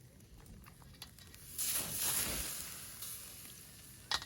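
Meat sizzling on a charcoal grill: a hiss starts suddenly about a second and a half in, then fades. A sharp click comes near the end.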